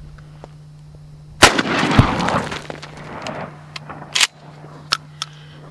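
A single 12-gauge pump shotgun firing a 1 ounce slug, the blast rolling on for about two seconds as it echoes. A couple of seconds later come sharp clacks as the pump is worked.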